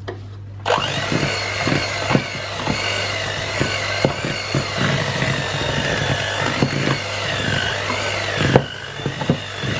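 Electric hand mixer switched on about a second in, its motor whining with a pitch that wavers up and down as the beaters work through thick chocolate cookie dough. Repeated short knocks of the beaters against the bowl come throughout.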